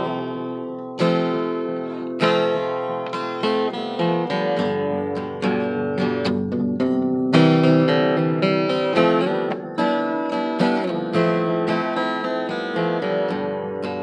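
Acoustic guitar strummed, with a strong chord stroke about once a second and lighter strokes between, the chords left ringing.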